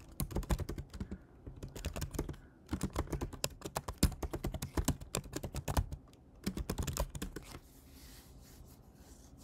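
Typing on a computer keyboard: quick runs of key clicks in several bursts with short pauses, as shell commands are entered, stopping about three-quarters of the way through.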